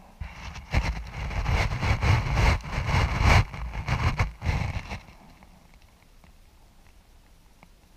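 Wind gusting over the microphone: an irregular rumbling buffet for about five seconds, then dropping away to a faint hiss.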